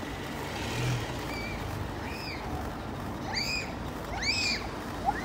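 Steady low rumble of a bicycle ride on tarmac, tyre and wind noise on the handlebar-mounted microphone, with a handful of short high chirps that rise and fall, the loudest two about three and a half and four and a half seconds in.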